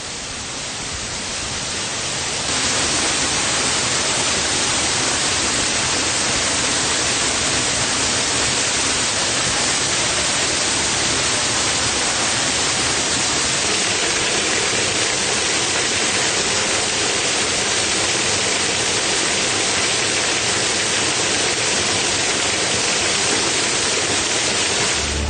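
Waterfall: a steady rush of falling water, growing louder over the first two seconds and jumping louder again about two and a half seconds in.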